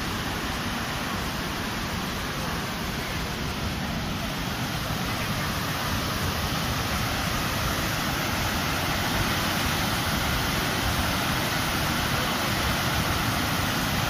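Pykara Falls rushing over a wide, tiered cascade of rocks: a steady, even rush of water that grows a little louder about halfway through.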